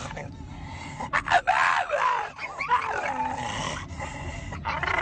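A dog making odd vocal sounds: whining, grumbling calls whose pitch slides up and down. A few sharp knocks come about a second in.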